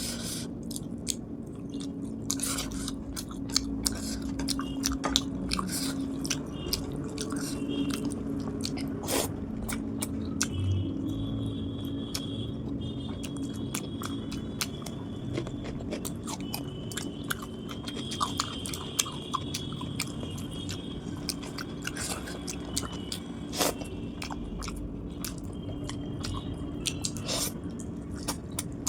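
Close-miked chewing, biting and wet mouth sounds of someone eating fish curry with rice, with many small smacks and clicks. A steady low hum runs underneath.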